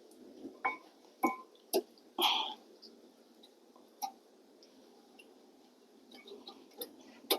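Light, scattered metal clicks and taps of a new brake pad being seated into the caliper bracket's pad clips, with a short scrape a little over two seconds in.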